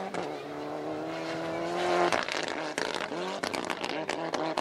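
Rally car engine held at high revs, climbing to a peak about two seconds in. It then breaks into a rapid run of sharp cracks between short rev blips that rise and fall.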